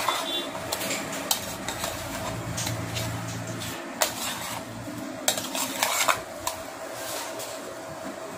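Steel spoon stirring and turning fish pieces in a plate, clinking and scraping against the plate in irregular strokes.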